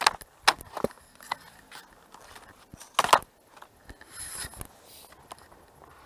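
Skis and ski boots crunching and scraping on packed snow in short, irregular steps as a skier shuffles round on the spot. The loudest crunch comes about three seconds in.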